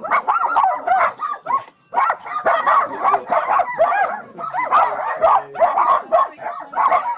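A pack of many small dogs barking and yapping at once in a dense, overlapping chorus, with a short lull just before two seconds in.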